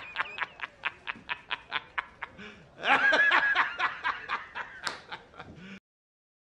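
A man laughing hard in rapid, evenly spaced "ha" bursts, about five a second, with a louder drawn-out laugh around three seconds in; it cuts off suddenly near the end.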